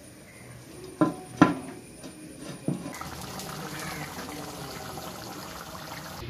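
A clay lid knocking onto a clay cooking pot, three sharp clinks within the first three seconds. Then a thick curry simmering in the clay pot, a steady bubbling hiss.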